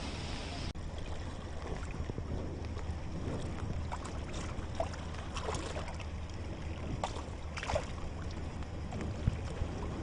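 Steady rush of a swollen river in flood, with wind noise on the microphone. A few brief sharp sounds come over it in the second half.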